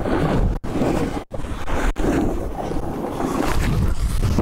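Wind buffeting the microphone of a camera carried by a snowboarder riding downhill, over the hiss of the board sliding on snow. The sound drops out briefly three times in the first two seconds.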